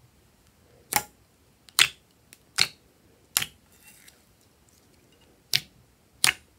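Glossy slime being poked and squeezed by fingers, trapped air popping out in sharp clicks: four evenly spaced pops in the first half and two more near the end.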